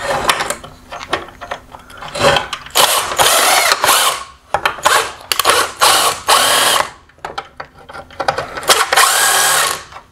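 Ryobi cordless driver spinning a socket in several short bursts of a second or so, its motor whine rising and falling, as it turns the headlight reflector bracket's adjusting bolts to release the inside reflectors.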